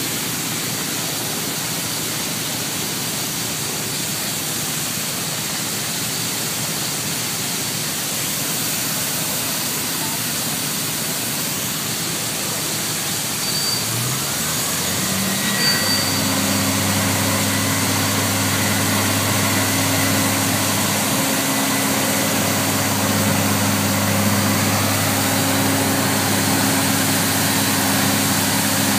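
Airport crash fire truck (ARFF vehicle) engine coming up to speed about halfway through, rising in pitch and then running at a steady high drone. A steady rushing noise runs underneath.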